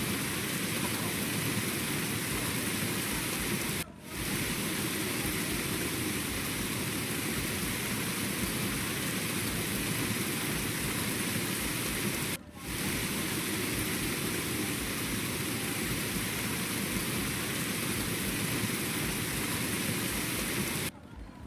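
Steady hissing noise, broken off briefly twice, like rain or rushing water.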